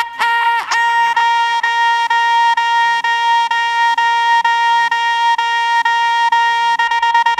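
Club dance music: one high note held steady for several seconds over a faint, even beat, with a quick downward sweep about half a second in.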